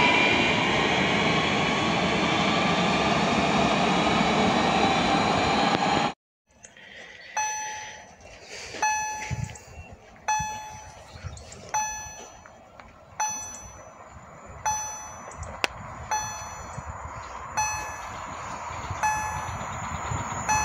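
An ED78 Impuls electric train runs past close by, a steady rumble and hiss that cuts off suddenly about six seconds in. Then a level crossing warning bell strikes evenly, about once every one and a half seconds, each stroke ringing and dying away.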